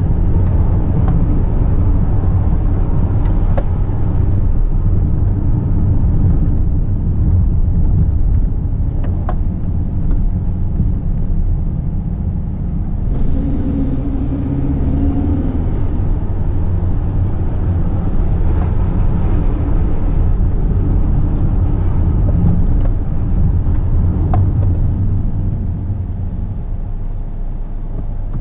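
Car engine and road noise heard from inside the cabin while driving: a steady low rumble, with a brief low tone about halfway through and a few faint ticks.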